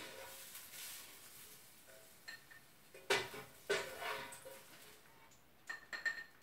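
A metal utensil knocking and scraping against a frying pan: a few sharp clinks that ring briefly, the loudest about three seconds in, then a quick cluster of lighter taps near the end, as sautéed mushrooms and garlic are scooped out of the pan.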